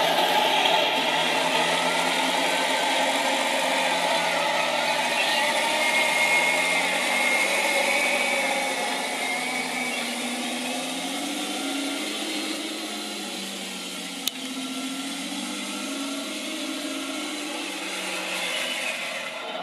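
Radio-controlled Tiger 1 model tank driving: the whine of its electric drive motors and gearboxes, mixed with the simulated engine sound from its Clark TK24S sound unit. The whine rises and falls in pitch as the tank steers and grows quieter as it moves away, with one sharp click about fourteen seconds in.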